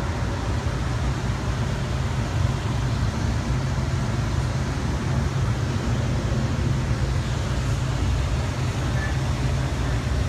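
Light rail car running along the line, heard from inside the passenger cabin: a steady low rumble with an even hiss of running noise over it.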